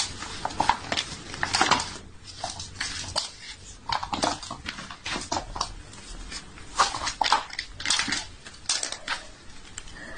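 Scratchy rustling and scraping of shoelaces being pulled and tied on a canvas sneaker, in short irregular bursts.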